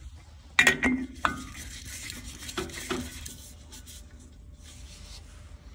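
Handling clatter as a green one-pound propane cylinder is fitted to the regulator of a portable propane grill: sharp metal clicks and knocks about half a second in and again near three seconds, with rubbing and scraping between them.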